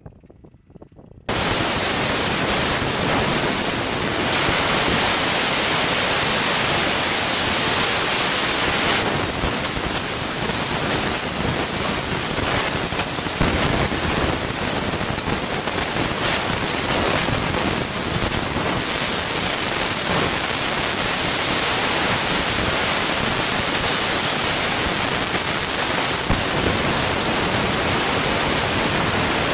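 A loud, steady hiss of noise that cuts in abruptly about a second in and holds unchanged, with no engine tone or shots standing out.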